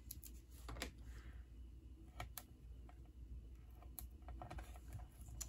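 Faint scattered small clicks and a brief soft rustle about a second in, from paper and craft supplies being handled on a work table.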